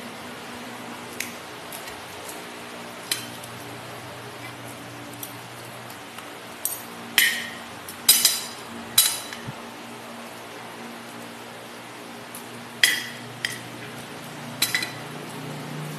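Cutlery and dishes clinking during a meal at a glass-topped table: scattered short, sharp clinks with a brief ring, a cluster of the loudest about seven to nine seconds in.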